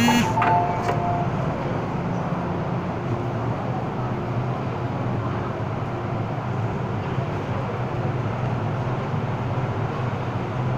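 An electronic two-tone chime from an MTR M-Train (Hong Kong metro) ends about a second in. After that, the standing train and station platform give a steady low hum and rumble.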